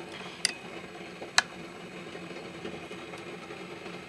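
Three light clinks of kitchen utensils against a dish in the first second and a half, over a steady low hum.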